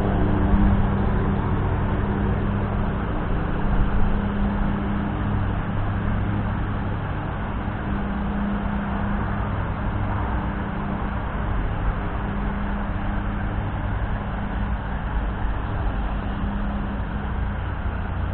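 Steady low rumble with a continuous hum, like a running engine or passing traffic.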